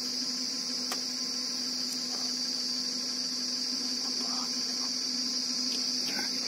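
A steady, unbroken high-pitched drone of insects in the forest, with a low steady hum beneath it.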